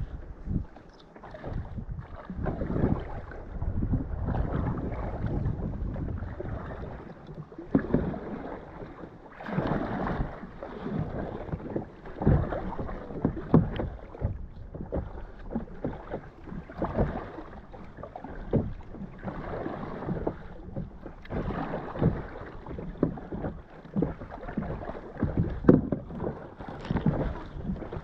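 Stand-up paddle dipping and pulling through choppy water in irregular splashing strokes every second or two, with water washing against the board.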